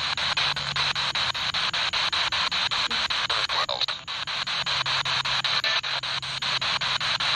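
Spirit box radio sweeping through stations: a steady hiss of radio static chopped into even pulses about five or six times a second, with a brief warbling fragment a little after the middle.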